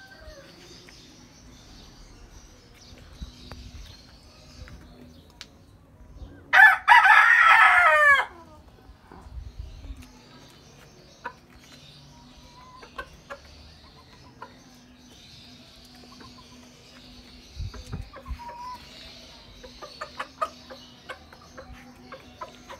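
A rooster crows once, loudly, about six and a half seconds in, a call of about a second and a half that falls away at the end. Around it the chickens cluck softly in short calls, with small taps from pecking, busier near the end.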